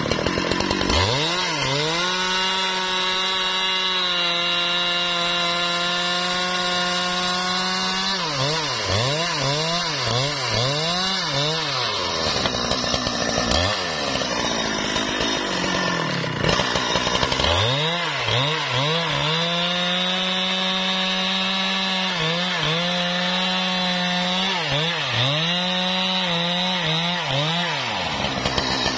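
Husqvarna 395 XP two-stroke chainsaw cutting wood. It revs up to a high, steady full-throttle note twice, each spell broken by a quick run of revs dipping and rising again, with a lower-revving stretch in the middle and the revs dropping near the end.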